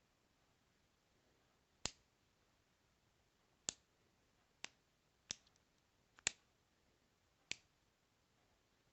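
Olight O'Pen Pro bolt-action pen being clicked: six sharp separate clicks at uneven intervals of about a second.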